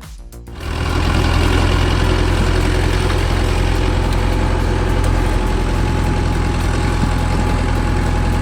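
A heavy machine's engine running steadily and loudly, with a faint steady whine above it, starting about a second in as the music cuts off.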